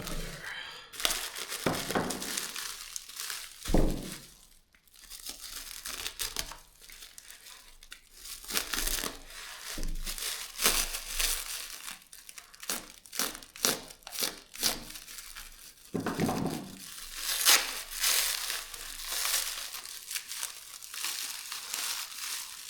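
Packaging crinkling and rustling as it is handled, in dense irregular crackles with a few short knocks.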